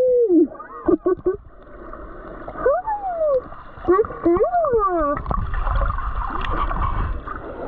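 Sea water sloshing and splashing around people wading waist-deep, with short indistinct voice sounds in between.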